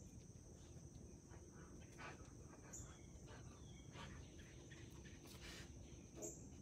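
Near silence: a faint steady high-pitched tone with a few soft rustles.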